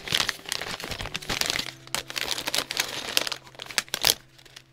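Foil and plastic bags of keycaps crinkling as they are handled and lifted out of a box: a run of crackles that fades out near the end.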